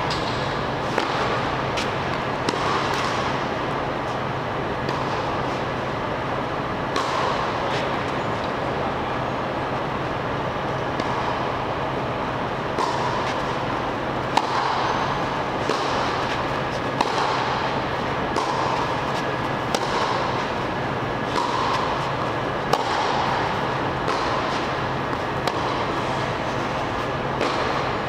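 Tennis rally: rackets striking the ball back and forth, sharp pops every second or two that echo in a large hall, over a steady hum.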